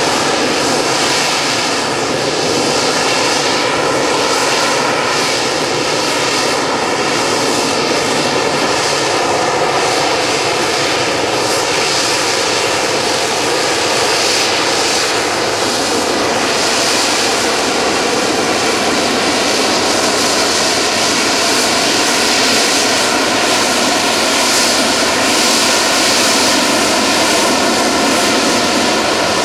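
Sea Harrier FA2's Rolls-Royce Pegasus turbofan jet engine running loud and steady, with a whine in its noise that drifts slowly in pitch.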